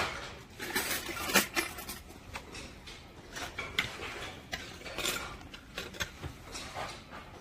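Small metal snap-in ceiling-mounting clips clinking and clattering as they are handled and set down on a workbench: irregular light knocks, the sharpest about one and a half seconds in.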